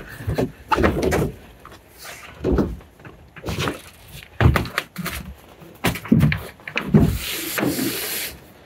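A kayak's hull knocking and thumping against foam roof-rack pads on a truck roof as it is lifted and shifted into place, in irregular bangs. A longer scraping slide comes about seven seconds in.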